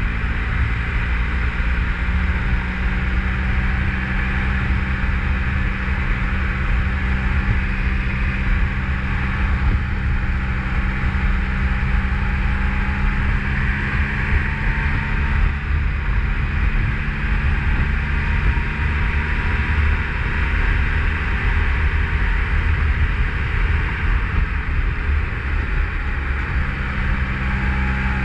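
Motorcycle engine running at a steady cruise, with steady wind and road noise.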